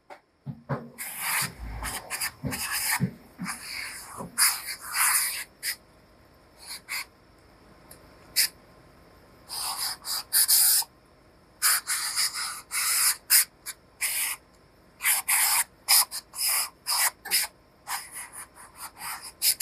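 Hand steam gun on a hose, fired in many short, irregular hisses over a suit jacket hanging on a hanger as the jacket is finished.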